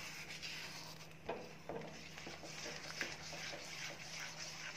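Silicone spatula stirring a thick gram-flour, ghee and sugar-syrup Mysore pak batter round a nonstick pan over low heat: a faint, continuous soft scraping with a few small ticks.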